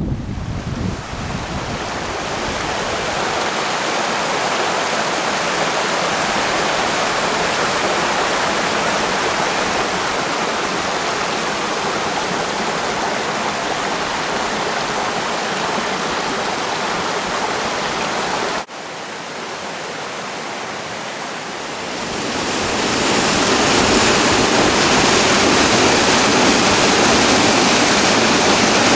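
Steady rush of flowing water. It breaks off sharply about two-thirds of the way through, comes back quieter, then grows louder and brighter a few seconds later.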